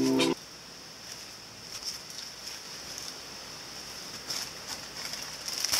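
Ukulele background music cuts off a moment in. Then a paper towel rustles and rubs as it wipes the rim of a glass baking dish, in short scattered scrapes over a faint steady hiss, the strongest near the end.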